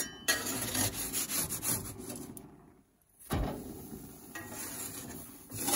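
Metal spatula scraping across gas grill grates as it slides under a grilled pizza crust to flip it. The scraping drops out briefly around the middle, with a knock just after.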